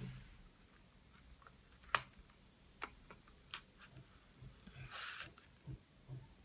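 Cardstock pieces of a handmade paper box handled by hand: a few sharp clicks and taps, then a brief rustle of paper about five seconds in as a fold-out panel is pulled open.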